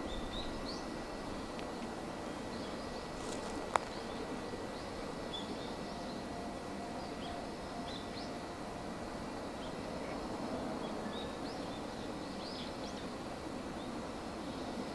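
Small birds giving short scattered chirps over a steady outdoor background noise, with a single sharp click about four seconds in.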